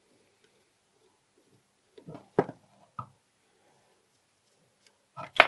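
Short metallic clicks and knocks from a tube-frame mortise lock and a screwdriver being handled on a workbench. There are a few clicks about two seconds in and a louder clatter near the end.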